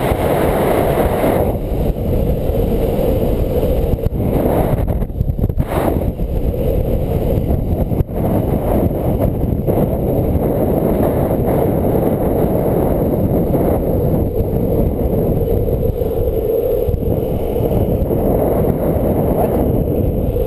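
Longboard wheels rolling fast on asphalt during a downhill run: a steady rolling rumble mixed with wind rushing over the microphone.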